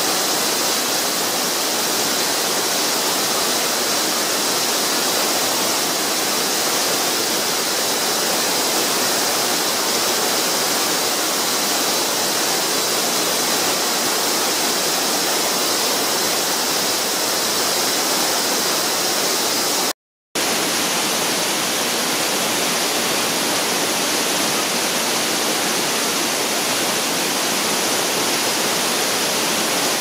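Steady rush of water from a large waterfall, with a momentary cut to silence about two-thirds of the way through.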